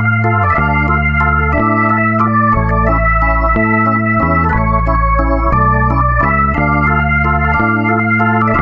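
Background music played on an electronic organ-style keyboard: a melody of held notes that change every half second or so over a steady bass line.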